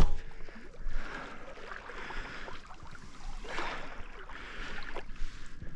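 Water sloshing and splashing around the legs of a person wading through knee-deep shallow water, in irregular surges with each step.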